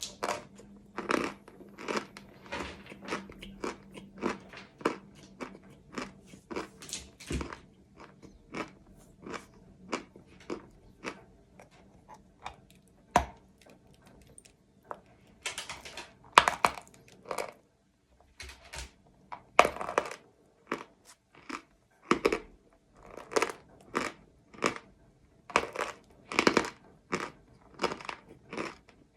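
Chalk being bitten and chewed close to the microphone: a long run of crisp, irregular crunches, about one or two a second, with a few short pauses.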